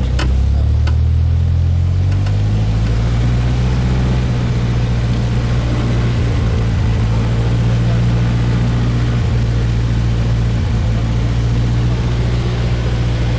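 Single-engine light aircraft's propeller engine heard from inside the cabin, rising in pitch over the first two seconds and then running at a steady, loud drone while the plane is on the ground.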